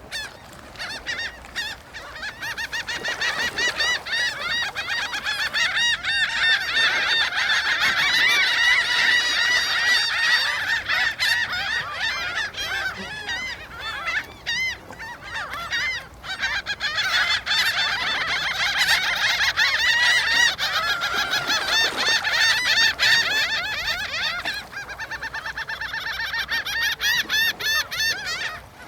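A dense chorus of many birds calling at once, with short arched calls overlapping one another. It builds up over the first couple of seconds, dips briefly about halfway through, and thins out near the end.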